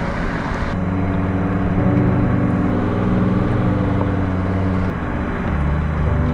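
Mercedes G 250GD Wolf's five-cylinder diesel engine running under way, its note rising and then dropping about five seconds in.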